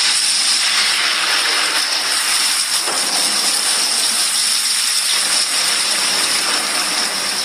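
Loud, steady rushing of water, a storm-like downpour of noise with no pitch to it.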